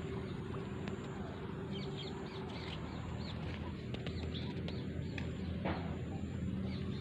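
Small birds chirping: a run of short, high, quick notes in the middle of the stretch, over a steady low hum.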